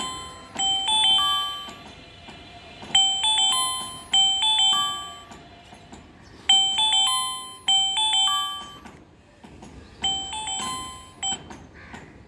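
Symphony L280 keypad phone's loudspeaker playing one of its default ringtones: a bell-like chime melody, a short phrase of ringing notes repeated about six times, each phrase dying away before the next.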